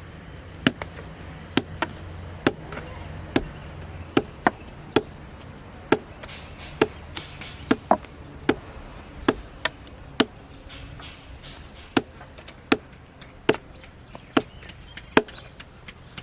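An axe chopping into wood: about twenty sharp blows at a steady pace of roughly one a second, with a brief pause about ten seconds in.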